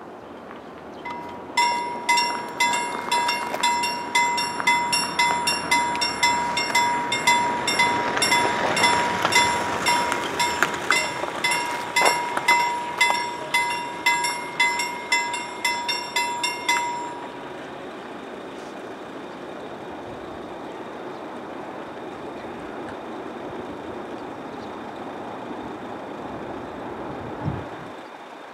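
Level-crossing warning bell ringing in even strikes, about two a second, starting about a second and a half in and stopping about halfway through once the barriers are down. After it, a steady quieter rumble, with a single low thump near the end.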